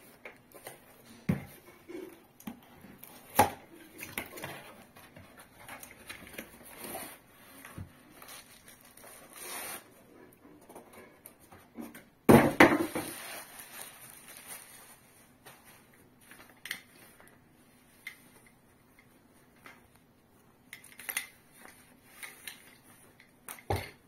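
Unpacking handling noise: a cardboard box and a tripod in a fabric carrying bag handled on a wooden table, with rustling, scrapes and scattered knocks. The loudest moment, about halfway through, is a second-long burst of scraping as the bagged tripod is pulled out of the box, and a sharp knock near the end comes as the bag is stood upright on the table.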